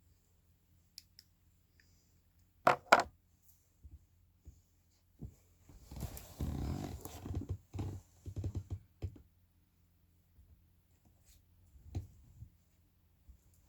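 Snoring: irregular breathing noises from a sleeper. The loudest is a short, sharp double sound about three seconds in, followed by a longer noisy breath of over a second around six seconds in and fainter ones after.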